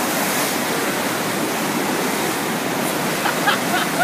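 FlowRider surf simulator's pumped sheet of water rushing steadily up its padded slope.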